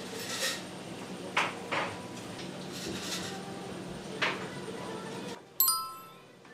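Restaurant dining-room ambience: a steady low hum with dishes and glasses clinking now and then. Near the end the room sound cuts off and a single bright bell-like ding rings and fades.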